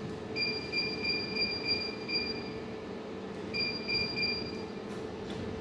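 High-pitched electronic beeping from a UV-visible spectrophotometer's keypad as the cursor key is pressed repeatedly. A run of beeps lasts about two seconds and a shorter run follows about a second later, over a steady low hum.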